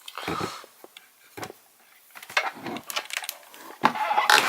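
Clicks, knocks and rustling from a handheld Snap-on MODIS scan tool being handled, in short scattered bursts, busiest and loudest near the end.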